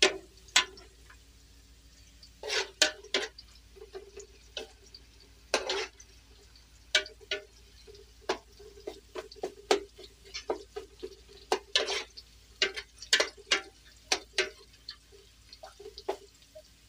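A metal spoon scraping and clinking irregularly against a large aluminium pot while sliced onions browning in oil are stirred.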